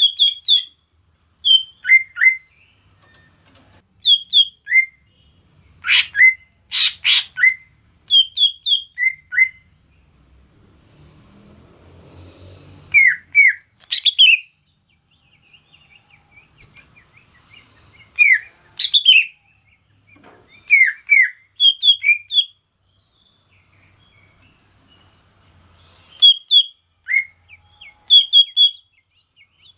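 Green leafbird (cucak ijo) calling: short, sharp whistled notes, mostly in pairs and quick runs of three or four, with gaps of a few seconds between groups. A steady high hiss lies underneath.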